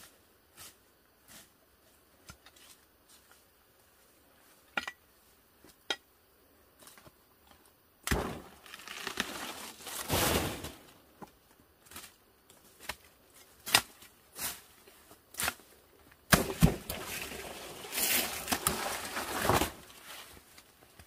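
Leaves and undergrowth rustling, with footsteps and twigs snapping, as someone pushes through ferns and brush. It comes in two long bursts, one about eight seconds in and another near the end, after a quiet stretch with only a few scattered sharp snaps.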